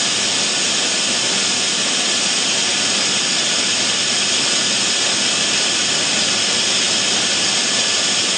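Automatic PET bottle filling and capping line running: a loud, steady, even hiss of machinery with no distinct beats or pauses.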